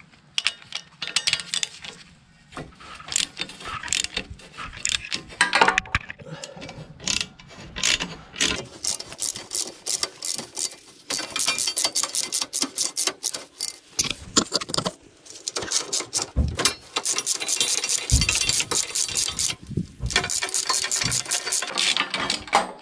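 Socket ratchet clicking rapidly in runs as bolts are unscrewed from the motorcycle's fittings, with short pauses between runs and a few low knocks.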